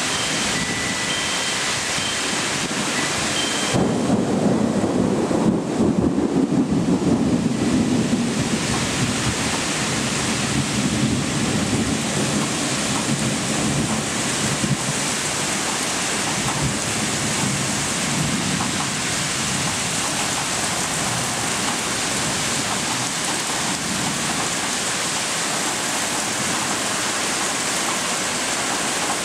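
Heavy rain pouring steadily during a thunderstorm. A long rumble of thunder breaks in about four seconds in, is loudest for several seconds, and then slowly fades into the rain.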